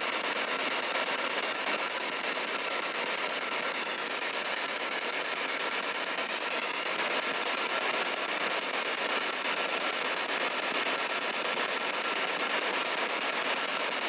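Spirit box radio scanner giving out a steady hiss of static, with a faint thin steady tone running under it.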